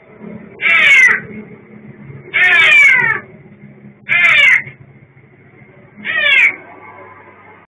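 A cat shut in a room meowing loudly and repeatedly: four cries, each falling in pitch, about every one and a half to two seconds.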